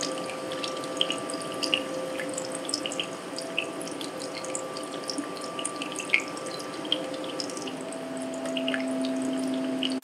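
Sound-art piece built from field recordings, played back over loudspeakers: a scatter of short, dripping clicks over a few held tones, with a lower tone coming in about eight seconds in.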